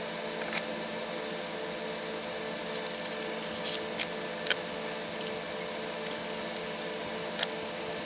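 Steady mechanical hum with a faint hiss, like a small fan running, with a few light clicks of handling scattered through it.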